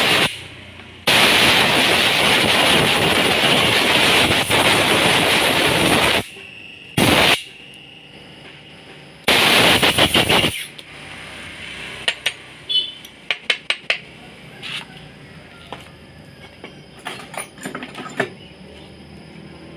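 Loud hissing blasts of pressurized air: a short one at the start, a long one of about five seconds, a brief puff, then another of over a second. They are cleaning dirt out of a sticking motorcycle front brake caliper's piston bore. After that come light metal clicks and taps as the caliper parts are handled.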